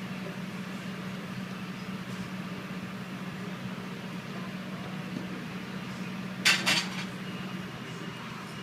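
Kitchenware clinking two or three times in quick succession about six and a half seconds in, over a steady low hum of kitchen equipment.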